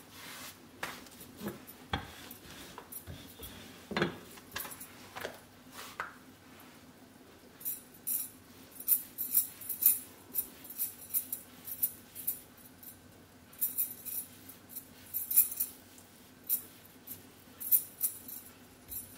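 Metal bangles jingling in quick, bright clicks as a hand rubs ghee over a rolled-out paratha, after a few soft knocks and taps on the countertop in the first few seconds.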